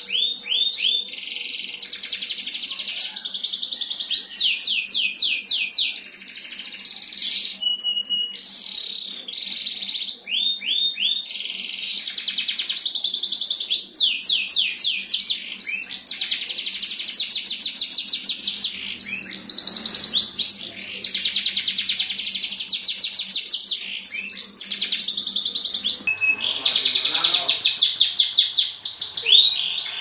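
Domestic canary singing a long, almost unbroken high-pitched song. It runs fast trills and rolls of rapidly repeated sweeping notes, switching to a new phrase every second or two.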